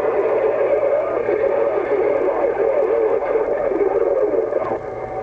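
CB radio receiver carrying a garbled, unintelligible transmission through distortion and static: a continuous muffled, speech-like warble with no clear words, dipping briefly near the end.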